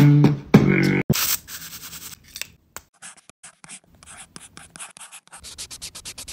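Beatboxing for about the first second, then a pen tip scratching across teeth in short, dry strokes. The strokes come faster and closer together near the end.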